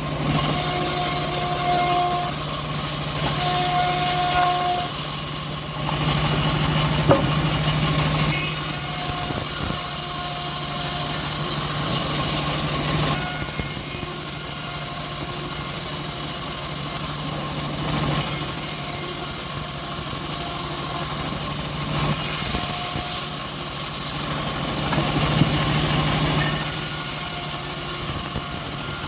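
Engine-driven homemade bandsaw mill running steadily while sawing teak, with a constant engine hum and a hissing cutting sound that swells and drops every few seconds.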